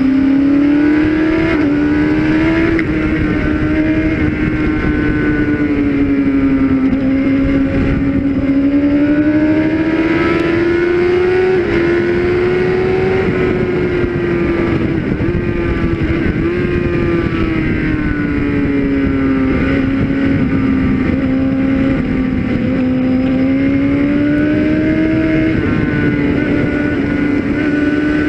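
Suzuki GSX-R600 K6 inline-four engine running hard at high revs, heard on board, its pitch rising and falling slowly as the throttle opens and closes through the corners. A steady rush of wind noise runs under it.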